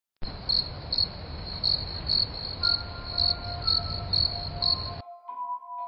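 Crickets chirping at night: a steady high trill with louder chirps about twice a second over a low rumble. It cuts off suddenly about five seconds in.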